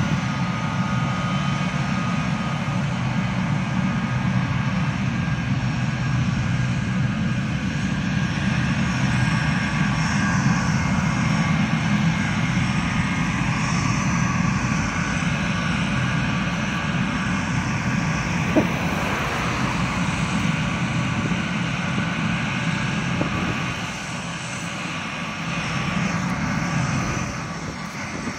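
Boeing C-17A Globemaster's four turbofan engines running on the ground: a steady loud rumble with a high jet whine over it, easing off a little near the end.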